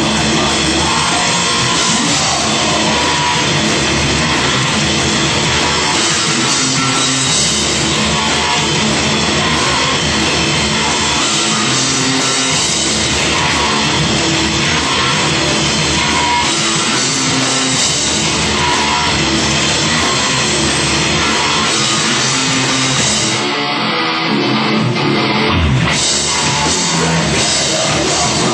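Rock band playing a song, loud and dense, with guitar and drum kit. About 24 seconds in the sound briefly thins out at the top and bottom for a couple of seconds, then comes back full.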